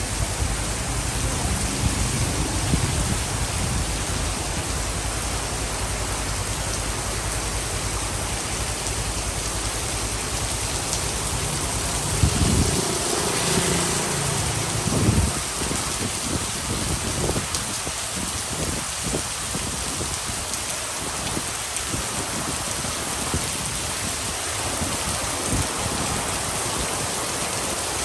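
Steady rain pouring onto a city street, a dense even hiss throughout. A louder low rumble swells and fades about halfway through.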